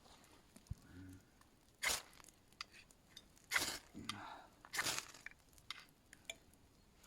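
Small sticks of wood cracking as they are split into pencil-size kindling: three loud sharp cracks over about three seconds, with lighter clicks and crackles between them.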